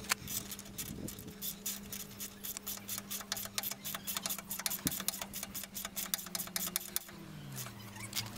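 Socket ratchet wrench clicking in quick regular strokes as the nut on a leaf-spring shackle bolt is tightened.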